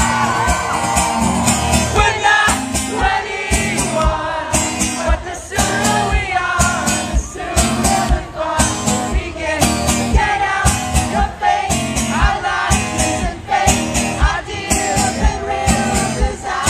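Live rock band playing loudly: drums keep a steady beat of about two hits a second under singing, with crowd voices joining in.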